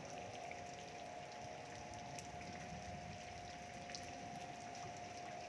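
Steady rain falling, with scattered small drop ticks and a steady high hum held at one pitch underneath.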